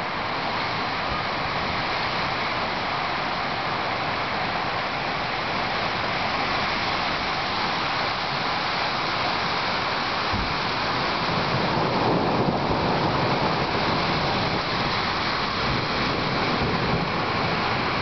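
Thunderstorm wind gusting through leafy trees with rain, a steady rushing noise that grows a little louder about two-thirds of the way through.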